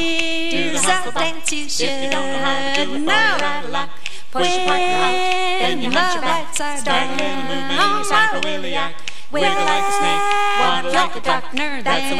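Group of singers singing a cappella with no instruments, holding chords and sliding through swooping phrases, with two brief breaks between phrases.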